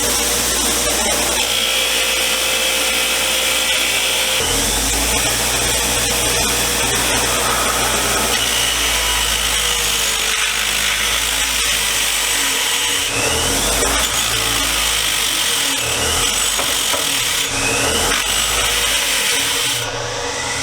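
Power-driven wire wheel scouring old paint off a Dawn vise's metal body: a steady motor whine under the harsh grinding hiss of wire bristles on metal, with short rising whines several times in the second half and a brief drop near the end.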